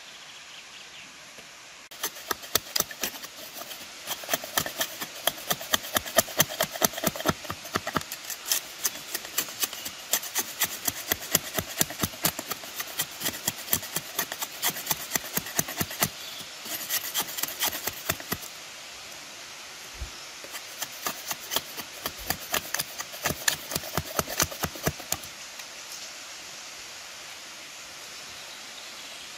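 Wood being sawn by hand in quick, even back-and-forth strokes. The strokes pause briefly about two-thirds of the way through, then go on for a few more seconds and stop.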